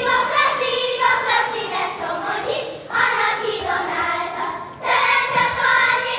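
Group of young girls singing a song together, in phrases broken by two short pauses.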